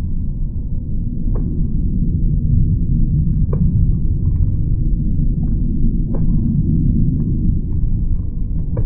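Jet engine noise of a Chengdu J-10 fighter in flight, heard as a steady, deep rumble pitched down by slow-motion playback. A few sharp clicks stand out every couple of seconds.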